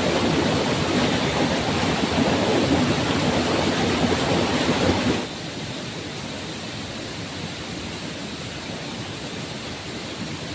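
Steady rushing noise with no clear tones, which drops suddenly to a quieter level about five seconds in.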